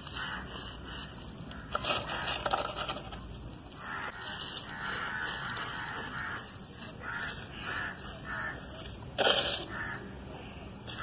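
Dry, dusty charcoal chunks and powder crunching and grating as a hand squeezes and rubs them in a basin, with uneven scraping. A brief louder sound comes about nine seconds in.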